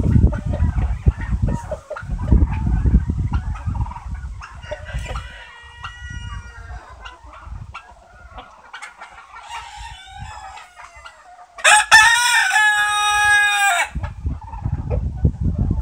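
Chickens calling softly, then a rooster crows once, about two seconds long, starting about twelve seconds in; the crow is the loudest sound. A low rumbling noise fills the first few seconds and returns near the end.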